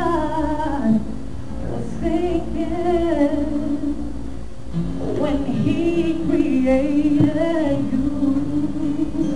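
Music: a solo voice singing slow phrases of long, held notes with vibrato.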